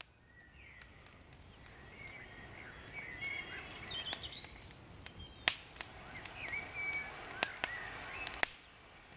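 Woodland birds chirping over a quiet outdoor ambience that fades in at the start, with a few sharp pops from a small wood campfire.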